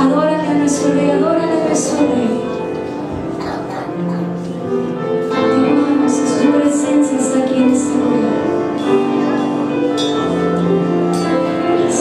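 Live worship music: a woman's voice singing into a microphone over long, sustained instrumental chords.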